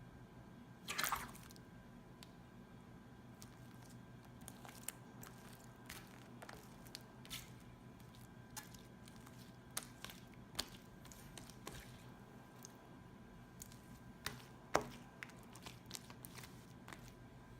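Homemade glue-and-borax slime being squeezed and pressed, making faint irregular squelches and little sticky pops, with a longer squelch about a second in and a sharper one near the end.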